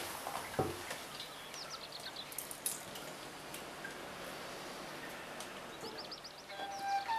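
Faint wet handling sounds as fresh sheep's cheese curd is worked and pressed into a wooden cheese mould, with dripping, a soft knock about half a second in, light clicks, and two brief runs of high chirps.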